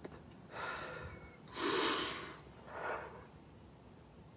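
A man crying and sniffling: three noisy breaths in and out through the nose, the loudest about a second and a half in and a weaker one near three seconds, as he wipes his nose with a tissue.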